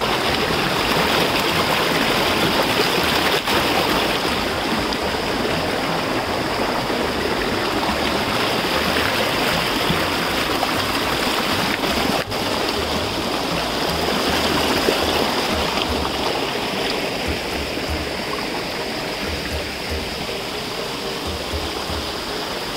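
Stream water rushing and splashing over rocks in a small cascade, a steady rush with a faint steady high tone above it, a little softer near the end.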